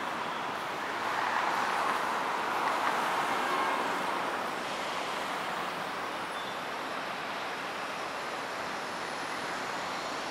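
Steady city road traffic noise, an even hiss, swelling louder for a few seconds about a second in.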